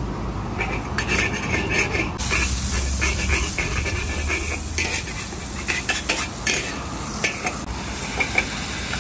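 Thin flat rice noodles (kuey teow) sizzling in hot oil in a carbon-steel wok, with a metal spatula repeatedly scraping and clanking against the wok as they are stir-fried. The sizzle grows louder about two seconds in.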